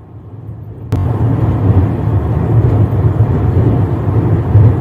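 Steady low rumble of a passenger train coach running along the track, starting abruptly about a second in.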